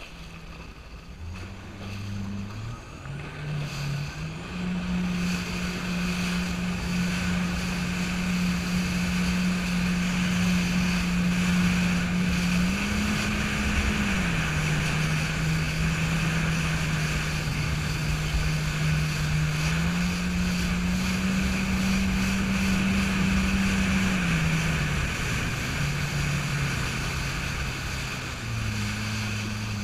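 Jet ski engine running at speed with water rushing past. The engine picks up over the first few seconds, its pitch steps up and down a few times, and it eases off near the end.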